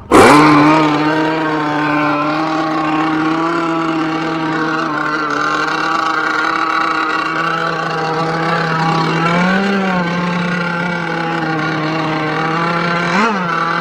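Gas-engined RC boat running at speed, one steady high-pitched engine note that starts abruptly and swells briefly in pitch about two-thirds through and again near the end.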